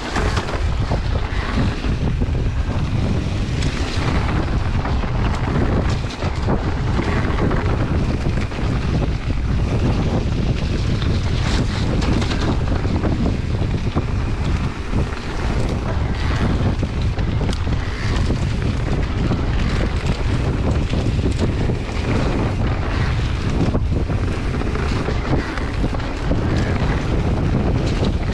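Wind buffeting the microphone of a camera on a moving mountain bike, over a steady low rumble of tyres on the trail, with frequent small knocks and rattles from the bumps.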